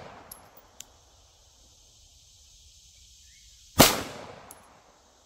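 A 9mm Glock 17-pattern pistol fired once from a bench rest in slow aimed fire: a single sharp shot about four seconds in that rings out and fades over about a second. The first second holds the fading echo of the shot before, with a couple of faint ticks.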